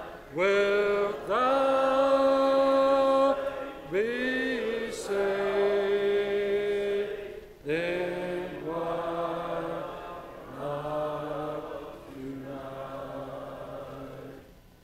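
A man singing a slow hymn, holding long notes phrase by phrase. The singing ends just before the close.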